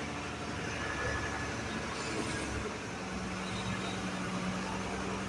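Diesel engine of a tractor-trailer truck running at low speed, heard from inside the cab as a steady low hum. A steady higher tone joins it about three seconds in.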